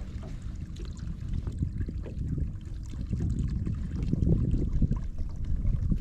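Low, uneven rumble of wind buffeting the microphone and water lapping on a fishing boat, growing louder in the second half.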